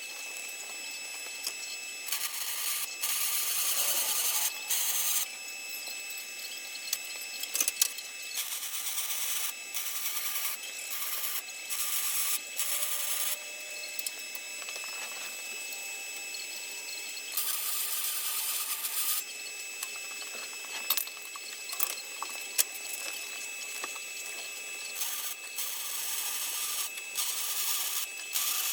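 Electric arc welding on the truck's steel frame crossmember: a hissing crackle in runs of a few seconds, stopping and starting again between beads.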